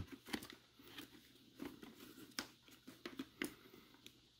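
Faint, scattered clicks and rustles of hands handling a Scorpion EXO-AT950 motorcycle helmet, pressing its liner, padding and a communicator wire into the shell's edge.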